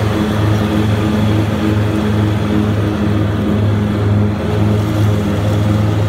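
Grasshopper 325D diesel mower running steadily under load with its Power Vac leaf-collection blower going: a low engine drone that throbs in a slow, even beat, under a steady rush of air from the blower.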